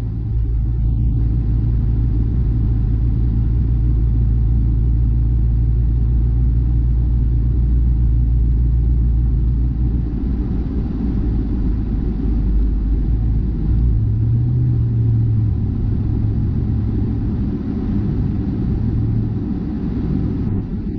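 Low, steady rumble of a car's road and engine noise heard while driving on the highway, with the deep drone shifting in pitch about ten and fourteen seconds in.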